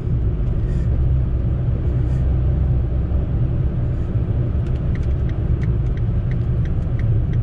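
Fiat Panda's engine and tyre noise heard from inside the cabin while driving, a steady low drone. About two-thirds of the way in a light regular ticking, about three ticks a second, sets in over it.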